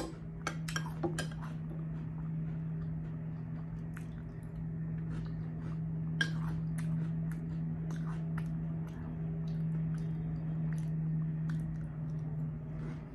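Metal spoon clinking and scraping against a glass food-storage bowl while scooping cereal out of milk, with a quick cluster of clinks about a second in and a sharp clink about six seconds in. A steady low hum runs underneath.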